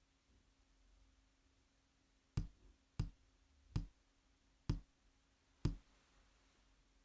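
Five sharp taps on the wood of a chessboard, a little under a second apart, with near silence between them.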